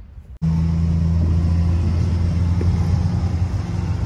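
Backhoe loader's diesel engine running at a steady idle, a loud low hum that cuts in abruptly about half a second in.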